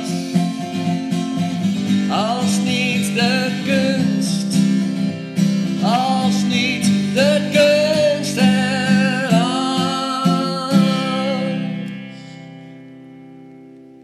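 A man singing the closing line of a Dutch song to acoustic guitar. The voice and guitar stop about eleven seconds in, and the last guitar chord rings on and fades away.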